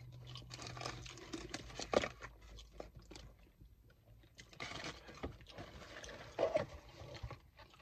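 Close-up chewing and crunching of fried chicken, wet irregular mouth sounds with small crackles, and one sharper click about two seconds in.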